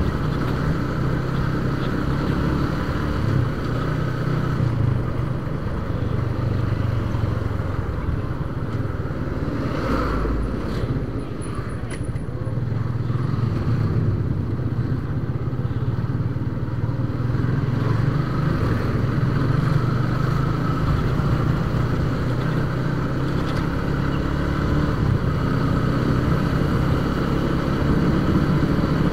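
Yamaha Vixion motorcycle's single-cylinder four-stroke engine running steadily while under way, mixed with wind and road noise. The engine eases off briefly about ten seconds in and then picks up again.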